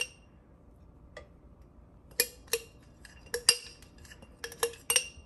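Metal spoon clinking and scraping against a glass jar while digging out solid coconut oil: a string of sharp, short-ringing clinks, sparse at first and coming in quick runs in the second half.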